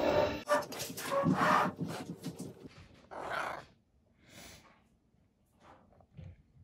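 Fleece strips of a felt snuffle mat rustling as a hand scatters dry kibble into it, then a couple of short breathy sniffs and faint rustles as a cat noses into the mat.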